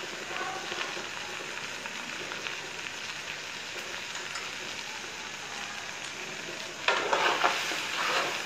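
Polao rice frying in ghee in a metal pot, a steady sizzle. About seven seconds in, a metal spoon starts stirring and scraping the rice against the pot, louder and uneven.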